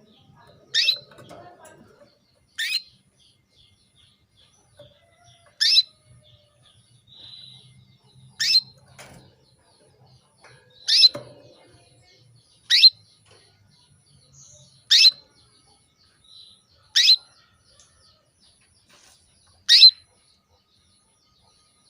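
Female canary giving single short chirping calls, about nine of them, spaced a couple of seconds apart. These are the calls of a hen in breeding condition calling to a male.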